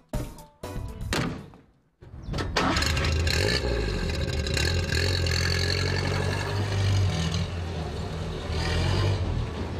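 A few knocks, then about two seconds in the Mercedes-Benz 170's 1.7-litre four-cylinder petrol engine is started and runs steadily. It swells twice as the truck moves off.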